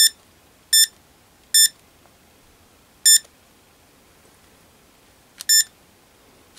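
Mustool MT92 digital multimeter's beeper sounding five short, high beeps as its selector dial and buttons are worked, the key tone confirming each change of function. There are three in quick succession, then one, then one more near the end.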